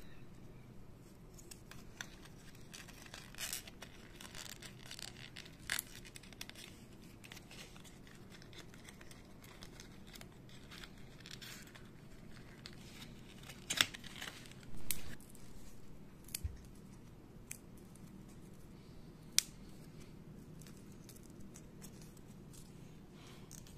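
Foam 3D puzzle pieces handled and pressed into slots in a foam base: scattered light clicks, scrapes and rustles, with a few sharper clicks, the loudest about 14 seconds in, over a faint steady low hum.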